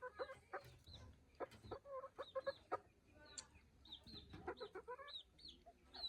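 Chickens clucking, with many short high peeps and a few sharp taps scattered through.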